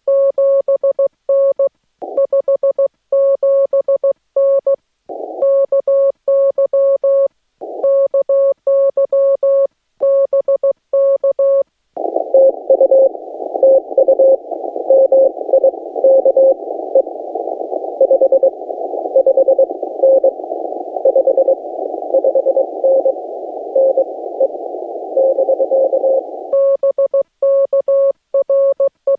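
Morse code sent on a Yaesu FT-891 transceiver, heard as its keyed sidetone: a steady beeping tone keyed on and off in dots and dashes. Short patches of hiss break in between characters about two, five and seven and a half seconds in. From about twelve seconds in, for some fifteen seconds, the radio is receiving: narrow-filtered band hiss with a Morse signal keying through it, after which the keyed sidetone returns.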